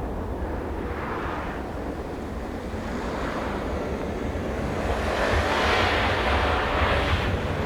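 Wind rumbling on the microphone, with a rally car's engine and tyre noise growing louder over the last few seconds as it approaches on the snow stage.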